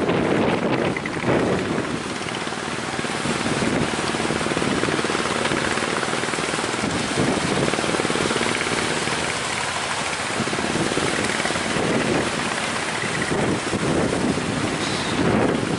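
Speedboat's outboard engine running steadily under heavy wind buffeting the microphone, with water rushing and splashing.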